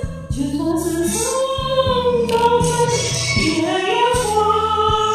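A woman singing a slow Chinese ballad over a karaoke backing track, in long held notes that slide between pitches.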